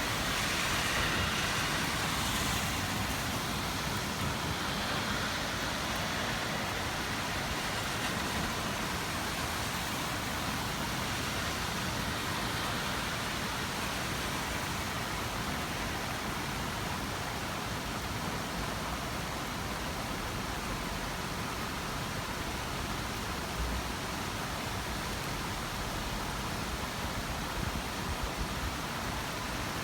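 Steady rainfall, an even hiss, a little louder in the first few seconds.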